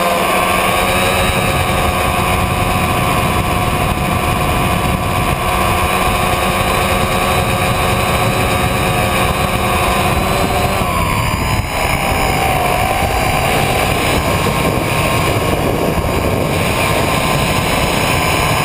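Tricopter's three electric motors and propellers whining steadily in flight, picked up by the camera on the airframe. About eleven seconds in, the pitch dips and comes back up as the throttle changes.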